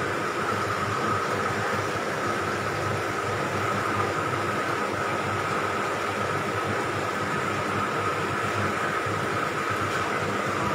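Steady machine-like noise with a constant high whine that does not change.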